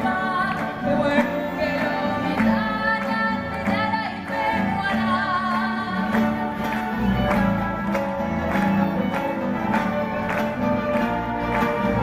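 Young female singer singing into a microphone, accompanied by a youth string orchestra of violins and other bowed strings, with a steady beat.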